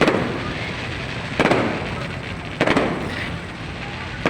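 Aerial fireworks going off: three loud bangs about a second and a quarter apart, each trailing off as it dies away, and a smaller bang near the end.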